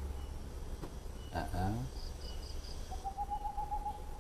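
Night-time outdoor ambience: insects chirping over a low steady hum, with a short trilled call of a night animal, about eight quick pulses, about three seconds in. A brief low voice is heard in the middle.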